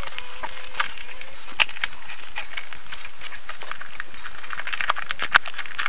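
A thin liquid-latex mould being peeled off a log's bark, giving irregular small clicks and crackles.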